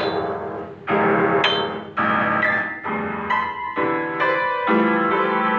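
Keyboard playing an instrumental passage of struck, sustained chords, a new chord about every second, with higher single notes in between.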